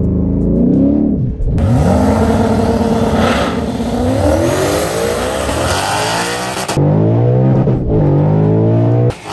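Whipple-supercharged Ford Mustang GT V8 launching on a drag strip and accelerating hard. Its pitch climbs in repeated sweeps, dropping at each gear change. It is heard in turn from inside the cabin, from the stands with a second car racing alongside, and from the cabin again.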